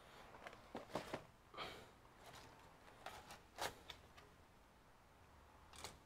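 Faint handling noises on a workbench: scattered clicks and taps of small hard objects, with a short rustle about one and a half seconds in.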